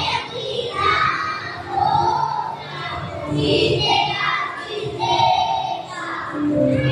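A choir of young children singing a patriotic song together in chorus into stage microphones.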